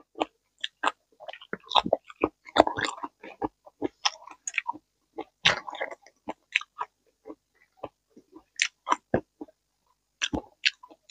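A person chewing crunchy raw vegetables and green papaya salad, with irregular crunches and wet mouth smacks.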